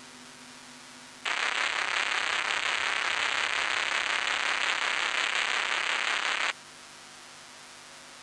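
A burst of loud static hiss that switches on about a second in and cuts off suddenly some five seconds later, over a faint low hum.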